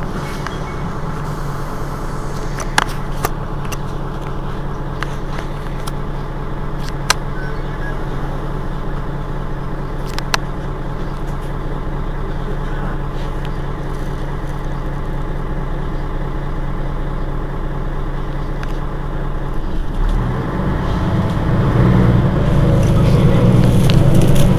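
Mercedes-Benz Citaro G C2 articulated city bus engine idling steadily while the bus stands still, with a few sharp clicks in the first half. In the last few seconds the low rumble grows louder.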